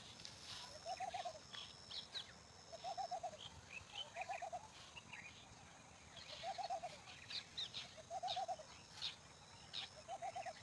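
Birds calling: one bird repeats a short, low call of a few quick notes about once a second, while other small birds chirp higher up.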